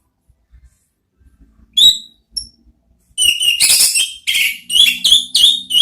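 Orange-headed thrush singing: a loud whistled note about two seconds in and a short one just after, then from about three seconds a quick run of loud whistled, chattering phrases.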